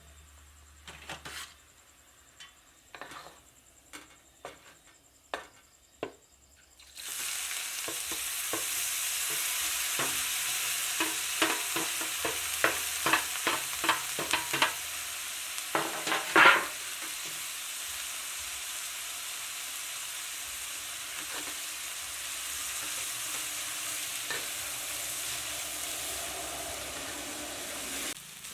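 A few separate knocks, then about seven seconds in food goes into hot oil and starts sizzling loudly. A spatula knocks and scrapes against the pan in quick strokes for several seconds, and then the frying sizzles on steadily until it drops off near the end.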